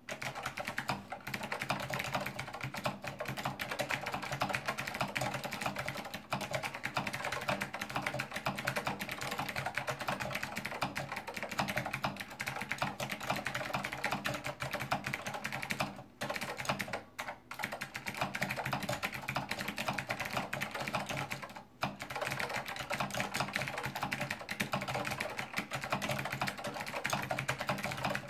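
Fast, continuous typing, about 95 words per minute, on a Monterey K2AX keyboard with clicky SKCM Blue Alps switches and thin doubleshot ABS keycaps, with brief pauses about 16 and 22 seconds in.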